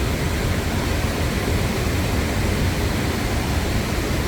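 Steady rushing of a river and waterfall, an even, unbroken hiss of moving water with a strong low rumble.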